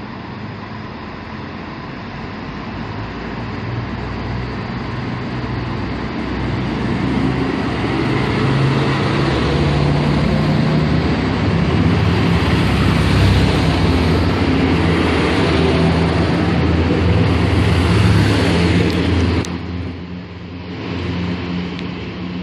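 Siemens Desiro Classic diesel railcar pulling into a platform, its engine drone and wheel noise growing louder as it passes close by. About twenty seconds in, the sound cuts abruptly to another diesel railcar approaching, quieter.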